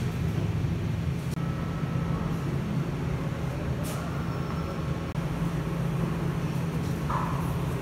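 Steady low mechanical hum or drone, like a fan or ventilation running, with a faint tick about four seconds in.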